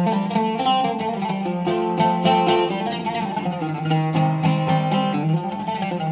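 Oud with a cedar soundboard and Pyramid strings, played solo: a flowing melody of quickly plucked notes over ringing low notes.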